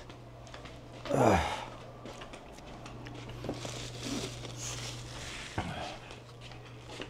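A short falling sigh-like vocal sound about a second in, then rustling and crinkling of food packaging over a steady low hum, with a sharp knock near the end.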